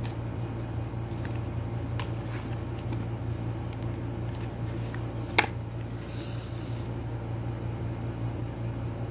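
Handling noises from unboxing items, a printed card and a coiled USB cable being moved, with a few light ticks and one sharp click a little over five seconds in, over a steady low hum.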